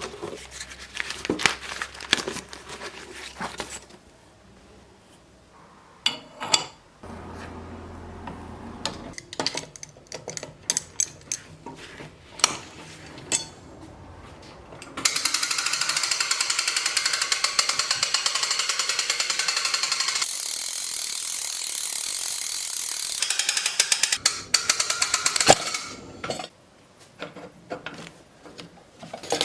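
Silversmithing tool work while making sterling silver wire: light clicks and taps of metal and tools, then a loud steady whirring hiss for about nine seconds from the middle, changing pitch partway through, before the clicking resumes.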